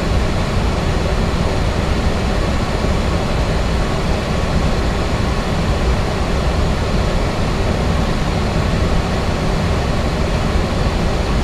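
Steady flight-deck noise of a Boeing 737-800 in flight on approach: a loud, even rush of air with a deep rumble underneath.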